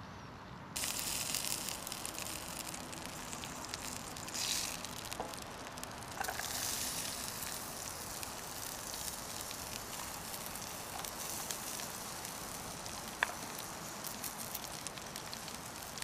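Butter sizzling in a small stainless steel pan over glowing wood embers, starting abruptly about a second in. It grows louder about six seconds in as diced onion goes into the pan and begins to fry.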